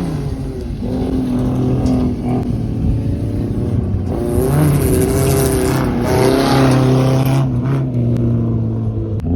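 Race car engines running hard on a gravel track, revving up and down in pitch as they accelerate, with a louder, hissier stretch in the middle.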